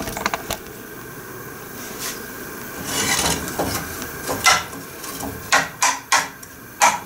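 A wooden spoon stirring chopped onion in a frying pan, rubbing and scraping across the pan, with several sharp knocks of the spoon against the pan in the second half.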